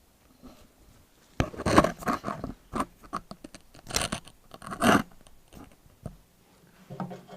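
Irregular scraping and clattering as a grease gun is handled and readied for the quick attach's grease zerks, loudest in a cluster about a second and a half in and again around four to five seconds in.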